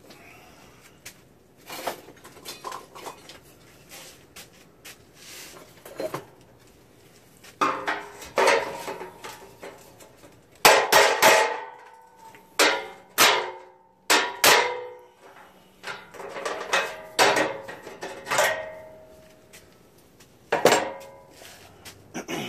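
Hammer blows on a riding mower's sheet-metal panel to straighten it: irregular metallic strikes, some in quick runs of two or three, each ringing briefly.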